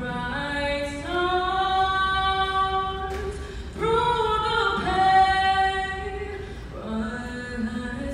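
A young woman singing the national anthem a cappella into a microphone, solo voice with no accompaniment, holding long notes that step up and down in pitch.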